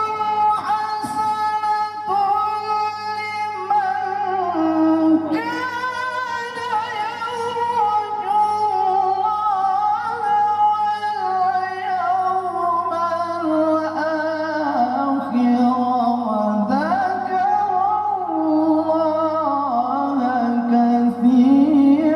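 Male qari reciting the Quran in the melodic tilawah style, drawing out one long continuous phrase with ornamented melisma; the melody sinks slowly over the middle and climbs again near the end.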